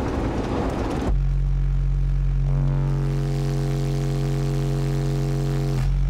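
Sundown SA12 12-inch car subwoofer playing a 46 Hz test-tone burp: after about a second of broad rumbling noise, a steady, very loud deep hum starts and holds, with higher overtones joining a second or so later. The burp measures 150.0 dB on the SPL meter.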